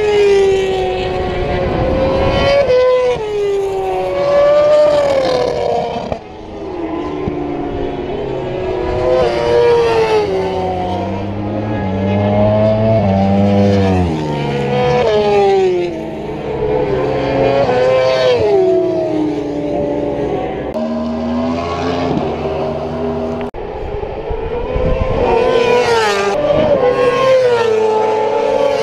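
Racing superbikes passing at speed one after another. Each engine note climbs in steps through the gear changes and falls as the bike goes by, so the sound swells and drops in repeated waves.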